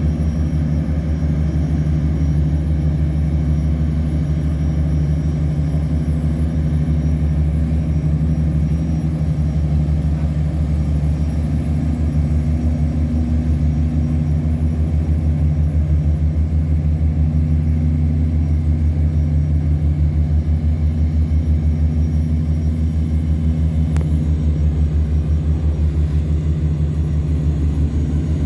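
River tugboat's diesel engine running steadily under load as it tows cargo barges against the current: a loud, deep, even throb with a fast regular pulse.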